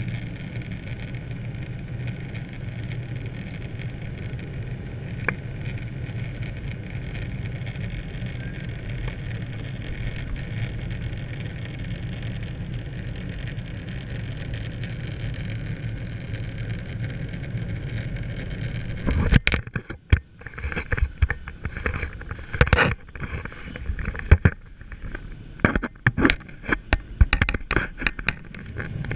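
Steady low drone inside a Boeing 737-800's cabin during descent: engine and airflow noise heard at a window seat. About two-thirds of the way through, loud irregular knocks and scrapes break in, the camera being handled and bumped against the cabin window.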